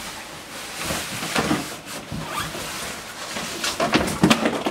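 Cardboard scraping and rustling as a Sondors fat-tyre e-bike is pulled up out of its shipping box. A few louder knocks and rattles come near the end as the bike clears the box.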